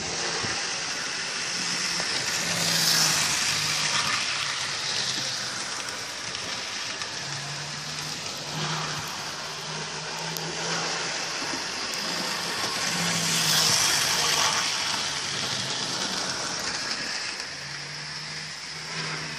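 Model railway train running on the layout's track: a steady rushing rattle of wheels on rail and motor that swells twice, as if the train passes close.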